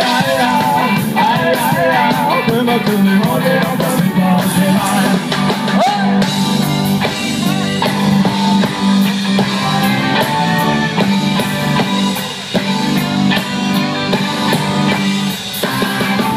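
A live rock band playing through stage amplifiers: electric guitars, bass and drum kit, with a lead vocal singing over roughly the first half before the instruments carry on alone.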